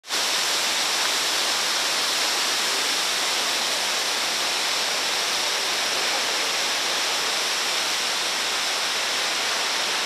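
Kegon Falls, a tall waterfall, sending up a steady, even rush of falling water.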